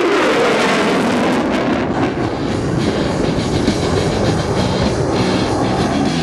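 Loud jet engine roar, falling in pitch over the first second as a jet passes, then a steady rumbling roar.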